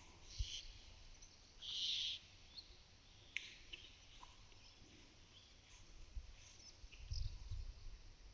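Small birds calling with short, high chirps across a quiet pasture, with a brief louder rasping burst about two seconds in, a single click a little later, and a low rumble near the end.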